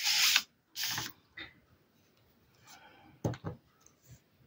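Paper rustling as an index card is slid and set down, two brief swishes in the first second. About three seconds in come a couple of short knocks as a small plastic rubber stamp is pressed onto the card.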